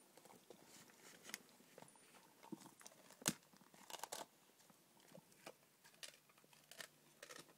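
Collie–shepherd dog chewing a raw rabbit rack: irregular, quiet crunches and sharp cracks of bone being bitten, the loudest crack a little before halfway.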